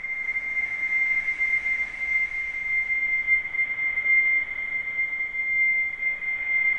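A 56k dial-up modem's connection sound slowed about seven times with PaulStretch, keeping its pitch: one steady high whistle-like tone held throughout with a soft hiss around it, smeared into an echoing sustain by the time-stretch.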